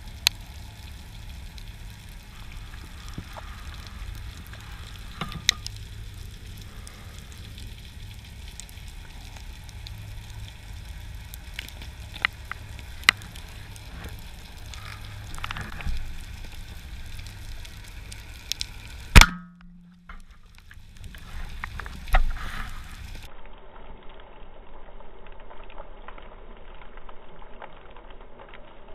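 Underwater ambience: a steady low rumble of moving water with crackling and scattered sharp clicks. A single loud sharp bang stands out about nineteen seconds in, followed by a brief drop to near quiet.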